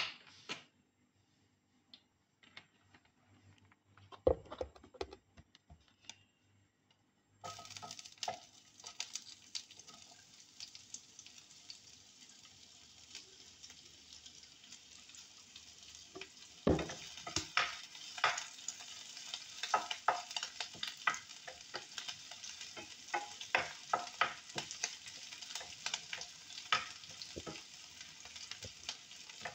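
Cut okra frying in hot oil in a nonstick frying pan: a steady sizzle that starts suddenly about a quarter of the way in. A heavy knock comes a little past halfway, then a wooden spatula keeps clicking and scraping against the pan as the okra is stirred.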